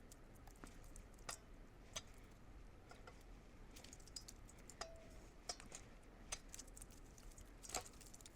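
Faint, scattered small clicks and taps, about one a second, from partly frozen raw shrimp being handled and picked clean of ice and shell.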